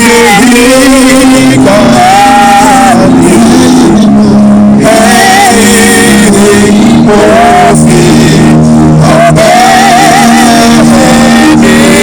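Worship song, called for as a Yoruba song: a lead voice sings with strong vibrato over held instrumental chords.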